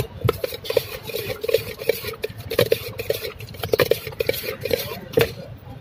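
Metal spoon stirring and scraping in a stainless steel bowl while chaat is mixed, clinking against the sides in quick, irregular strokes with a short ringing note after each knock.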